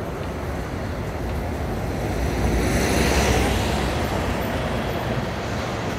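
Articulated city bus driving past close by: its engine rumble and tyre noise swell to a peak about halfway through, then fade as it moves off.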